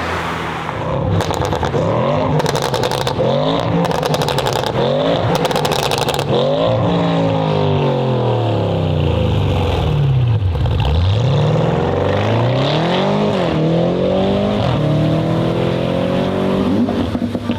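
Audi RS6 C8's twin-turbo V8, fitted with a Capristo exhaust, Milltek downpipes and the particulate filter deleted, revving up and down over and over. In the first six seconds, four short bursts of rapid crackling pops come from the exhaust.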